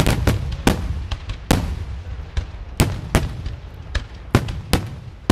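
Fireworks exploding: a rapid, irregular string of about a dozen sharp bangs, each ringing out briefly, over a continuous low rumble.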